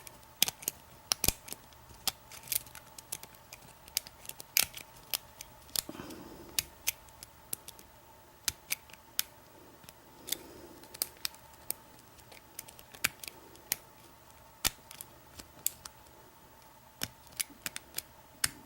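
Hook pick and tension tool working the pins of a pin-tumbler deadbolt cylinder. Many small, sharp metallic clicks and ticks come at an irregular pace as the hook lifts and sets the pins under light tension.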